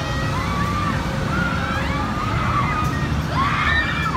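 Riders on a Mondial Top Scan thrill ride screaming as it swings and spins, several rising-and-falling shrieks in a row, the densest near the end, over a steady low rumble.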